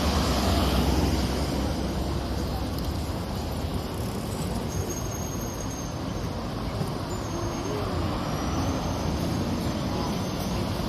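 City street traffic: a heavy vehicle's low engine rumble is loudest at first and eases after about two seconds, leaving a steady wash of passing traffic.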